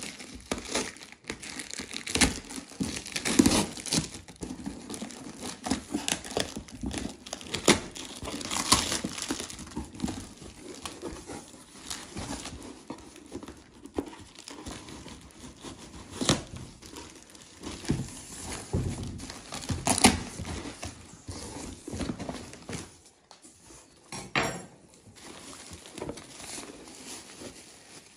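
Cardboard and plastic packaging handled by hand: packing tape torn from a cardboard carton, the flaps worked open, and plastic bags crinkling. Irregular rustles and crackles, busiest for the first twenty seconds and sparser near the end.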